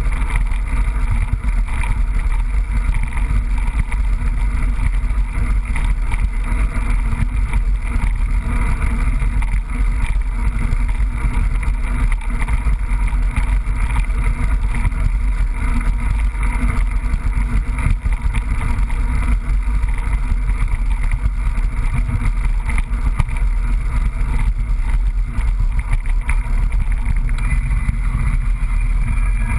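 Mountain bike riding over a trail, heard through a GoPro: a steady low rumble with constant fine rattling.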